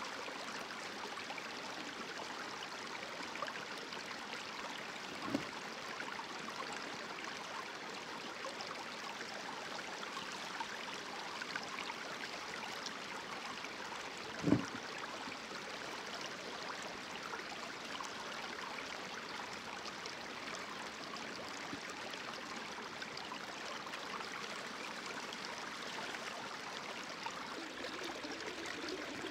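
Steady running water: a creek flowing through and around a fluid bed sluice. Two short knocks stand out, a faint one about five seconds in and a louder one about halfway through.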